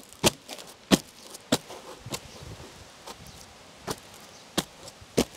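Seven sharp knocks in an uneven series, most a little over half a second apart, with a pause of nearly two seconds in the middle.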